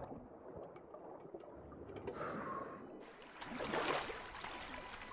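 Muffled underwater ambience, then about three seconds in it cuts to gentle water lapping and trickling at the surface as a head comes up out of the water.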